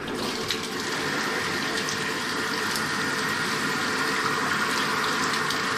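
Bathtub faucet running, water pouring into the tub and washing across the floor down the open drain: a steady rushing that starts suddenly. The water flushes leftover debris down a drain just cleared of a hair clog, and keeps draining freely.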